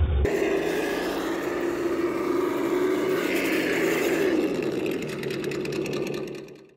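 An RC monster truck's ESS-One sound module playing a simulated V8 engine note as the truck crawls, the pitch rising briefly a little past the middle, then fading out near the end.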